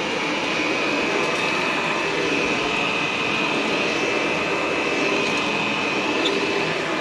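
Hoover Model 575 upright vacuum cleaner running steadily, its motor and fan giving a constant high whine over an even rush of air.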